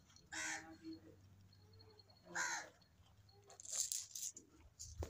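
A crow cawing twice, about two seconds apart, with a brief, sharper high noise a little before the end.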